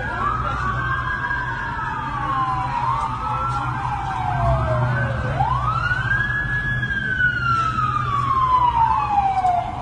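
Two or more emergency-vehicle sirens wailing at once, out of step: each sweeps up quickly and then falls slowly over a few seconds, with a steady low rumble underneath.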